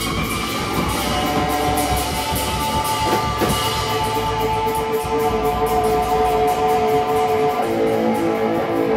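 Live rock band playing: electric guitar holding long sustained notes over drums with evenly repeated cymbal strokes.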